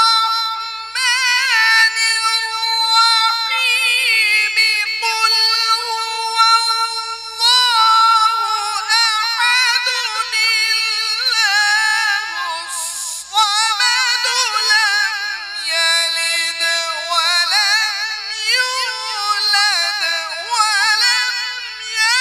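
A man reciting the Quran in a melodic chanted style (tilawat), in a high voice that holds long notes and moves through rapid wavering ornaments.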